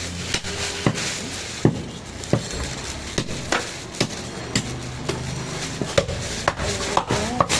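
Goat meat being chopped with a butcher's knife or cleaver: a string of sharp, irregular chops, roughly two a second.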